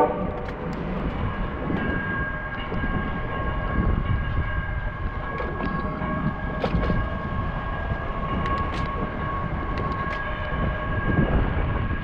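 Wind and road rumble from riding a bicycle, with a steady high-pitched whine running underneath throughout.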